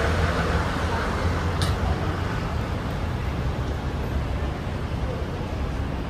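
Diesel railcar's engine running with a steady low drone under a broad hiss, with a brief high hiss about a second and a half in.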